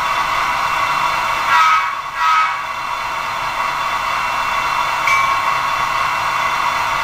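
Sound decoder in a Bachmann N-scale DD40 model diesel locomotive playing a steady diesel engine drone through its tiny speaker, thin with little bass. The horn sounds twice, about a second and a half and two and a half seconds in.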